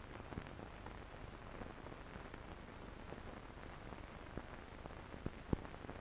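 Faint steady hiss with scattered crackles and pops, the loudest pop about five and a half seconds in: the empty soundtrack of a silent amateur film transfer, with no train sound on it.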